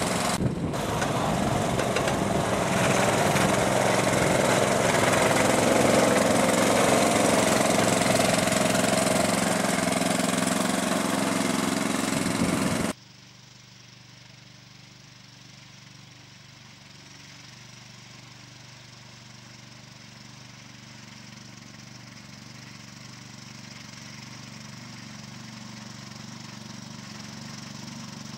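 Muck-Truck motorised wheelbarrow's small petrol engine running steadily under load while its plough blade pushes snow. About halfway through the sound cuts off abruptly to a much quieter engine hum that slowly grows louder.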